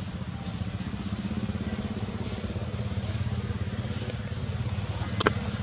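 An engine running steadily at a low, evenly pulsing drone, with one sharp click near the end.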